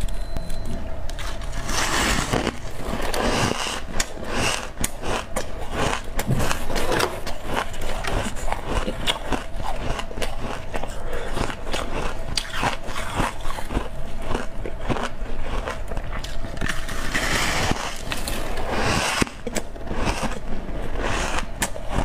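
Freezer frost crunching and crackling close to a clip-on microphone as it is squeezed in the hands and bitten, a dense run of rapid crackles with louder crunches now and then.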